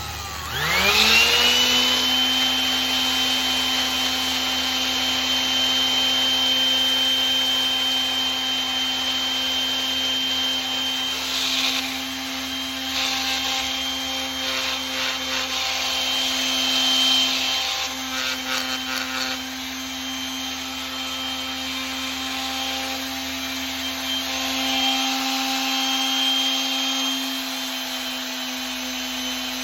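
Electric sander winding up to speed at the start, then running at a steady pitch with 320-grit sandpaper rubbing against the brass hosel of an old putter, the scraping rising and falling as the club is worked against it.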